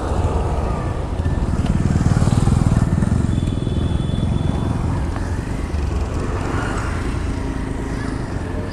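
Motorcycle being ridden, its engine giving a steady drone that grows a little louder about two seconds in.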